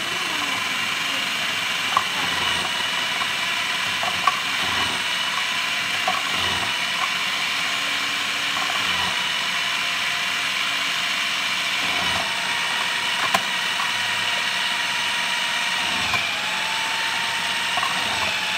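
Electric food processor running steadily with its shredding disc, grating mushrooms into shreds: a constant motor whine, with a few short sharp knocks as the mushrooms are pressed down the feed tube with the pusher.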